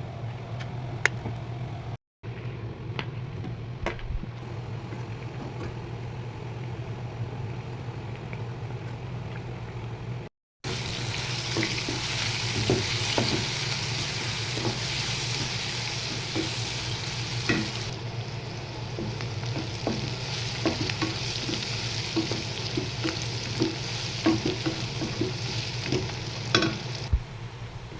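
Food frying and sizzling in a pan while a spoon stirs it, with many irregular clicks and scrapes against the pan. Before that, a quieter stretch with a low steady hum and a few clicks, broken by two brief cuts to silence.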